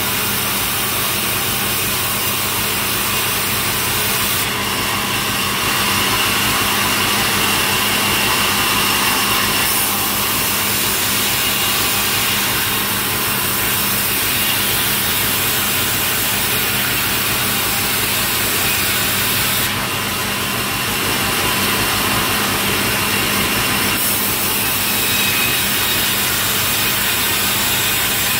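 Engine-driven sawmill running steadily, its saw blade cutting through a log in two stretches: a harsher hiss rises over the engine hum about four seconds in and again about twenty seconds in, each lasting several seconds.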